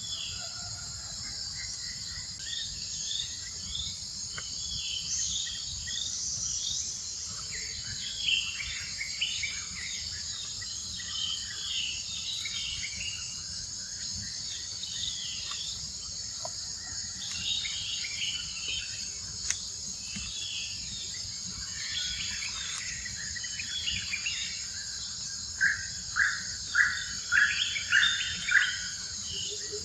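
A steady, high insect drone with many birds chirping over it. Near the end comes a run of about six loud, evenly spaced calls.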